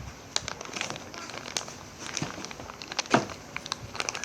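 Packaging being opened by hand: irregular crinkling and rustling with scattered sharp clicks, the sharpest about three seconds in.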